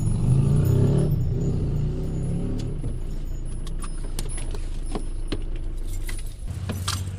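Diesel engine of a Fiat Scudo camper van running in the cab as the van comes to a stop at a fuel pump. From about three seconds in it is joined by a series of light clicks and jingles of keys and fittings.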